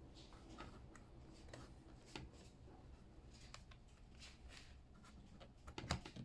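Near silence with faint scattered clicks and light rustling, and a sharper double click near the end.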